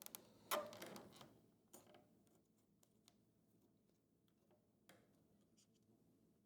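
Near silence, broken by a short rustle of hands handling and pressing a landing-gear fairing about half a second in, then a few faint isolated ticks.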